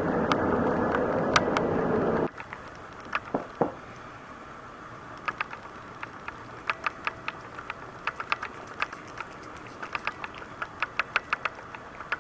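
Canon ELPH 310 HS camera clicking and tapping irregularly from inside itself while recording video, picked up by its own microphone: a fault the owner fears is a design flaw. For the first two seconds a loud steady rushing noise covers it, then cuts off suddenly, leaving the clicks plain, coming in quick clusters in the second half.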